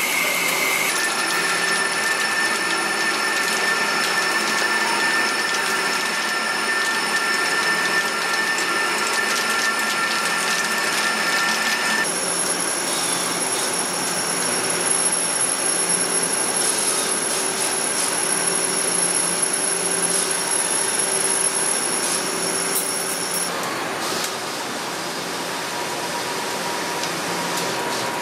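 Hwacheon Hi-TECH 450AL YMC CNC turning center cutting metal: a steady machining whine with high ringing tones from the spindle and cutting tool. The tone changes abruptly about a second in, about twelve seconds in and near the end as the cut switches between boring and internal finishing, and then axial drilling with a live tool.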